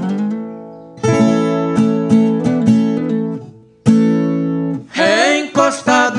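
Acoustic guitar playing an instrumental intro: a ringing chord fades out, then strummed chords follow. A singing voice comes in about five seconds in.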